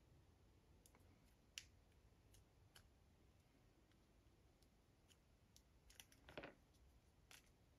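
Near silence, with a handful of faint, scattered clicks of a resin watch bezel being pried and worked off a G-Shock case with a small pin tool. The loudest click comes about a second and a half in, and a short cluster of clicks comes a little after six seconds.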